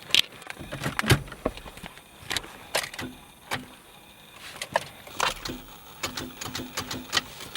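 Irregular sharp clicks and knocks, about a dozen over several seconds, inside a car that will not start: keys and controls being worked while the engine stays silent.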